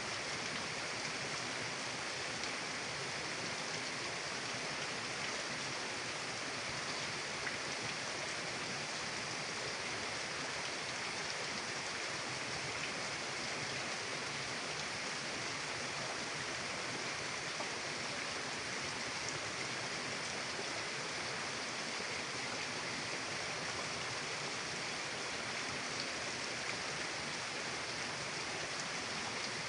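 Mountain river rushing in a steady, even hiss of flowing water, with no change in level throughout.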